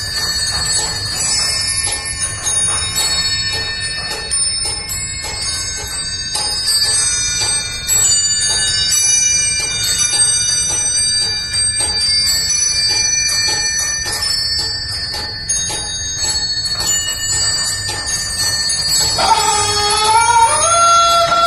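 Peacock Clock automaton's small bells tinkling in a running chime over a light clicking of its mechanism. About nineteen seconds in, a loud crowing call rises, holds and falls away, the automaton cockerel crowing.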